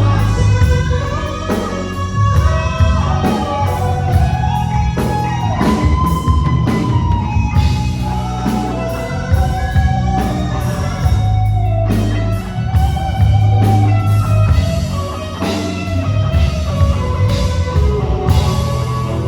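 Live rock band playing a slow song: electric guitar, bass and drum kit under a sustained, gliding lead melody.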